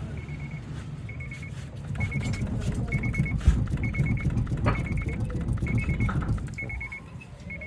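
Low vehicle rumble with scattered knocks, under an electronic warning beep that repeats about once a second. A single heavier thump comes about halfway through.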